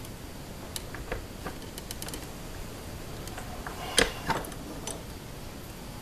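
Scattered light metal clicks and taps as a sight is worked into a 1911 pistol slide held in a bench vise, with two sharper clicks about four seconds in.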